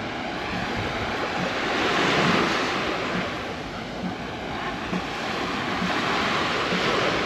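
Small sea waves washing onto a sandy beach, the surf noise swelling twice, with some wind on the microphone.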